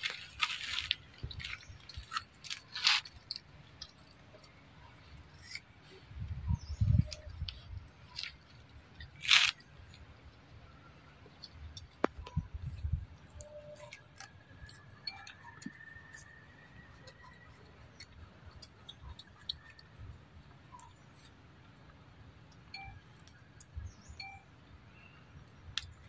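Macaques biting and chewing a crisp green fruit: scattered small crunches and clicks with a couple of louder crunches, over occasional low rumbles.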